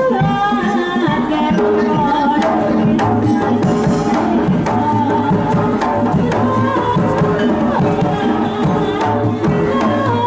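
East Javanese jaranan ensemble music: kendang hand drums playing a busy, continuous rhythm under a wavering, ornamented melody line.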